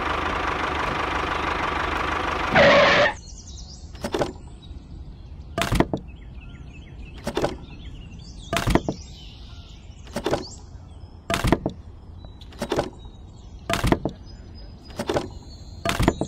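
A tractor engine running steadily, stopping about three seconds in after a brief louder burst. Then light wooden knocks, about ten of them at roughly one every second and a half, as small wooden sticks are set one at a time into a toy plastic trailer bed.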